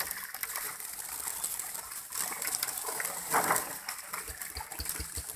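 Water gushing and splashing as fish are scooped from a pond with a plastic basket and tipped into a shallow metal tray, in several surges, the loudest about three seconds in.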